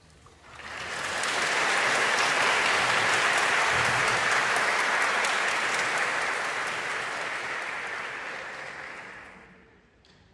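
Audience applauding: the clapping swells up quickly about half a second in, holds steady, and dies away near the end.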